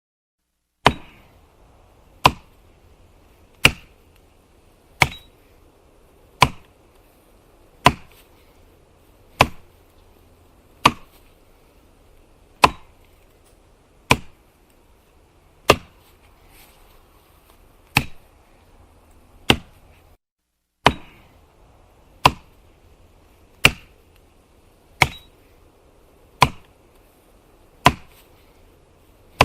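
Axe chopping firewood: sharp, evenly spaced blows into wood, about one every one and a half seconds, with a short break in the middle.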